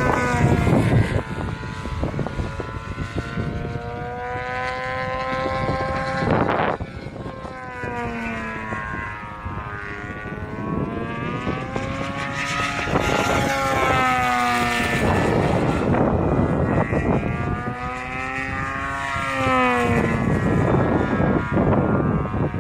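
The DA70 twin-cylinder petrol engine of a large aerobatic RC plane running in flight, its pitch rising and falling again and again as the throttle changes through the manoeuvres.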